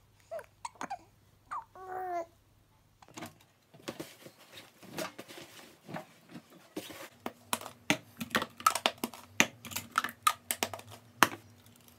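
A baby cooing and babbling in short bursts for about two seconds. Then a run of clicks, knocks and rustles from laundry being handled at a front-loading washing machine, and plastic baby bottles clattering as they are stacked on a steriliser rack, the sharp clicks coming thicker towards the end.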